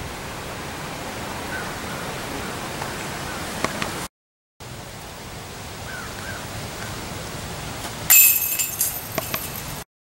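A disc golf disc hits a chain basket: a sudden metallic clank, then about a second of chains jingling, over a steady outdoor hiss.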